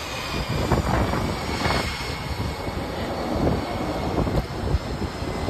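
Fighter-jet engine noise, a steady rushing without clear tones, mixed with wind buffeting the microphone in a few gusts.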